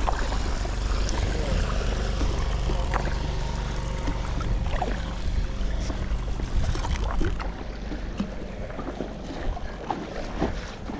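Kayak paddle strokes splashing and dripping in the river, over a low rumble that drops away about seven and a half seconds in.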